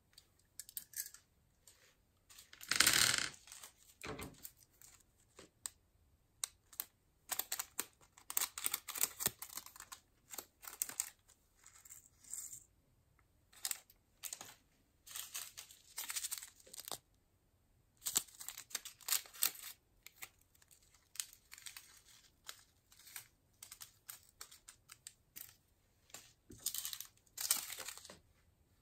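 Glitter, sequins and tiny microbeads being handled and sprinkled from small containers and packets into a glass dish of silver glitter: a run of short, irregular rustling and crinkling bursts with brief pauses, the loudest about three seconds in.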